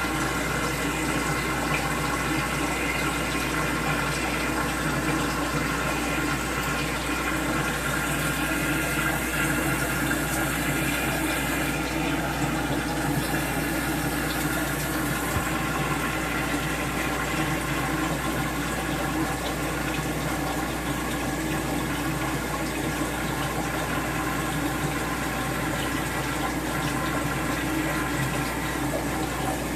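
Steady running and splashing of aquarium water, with a low hum underneath.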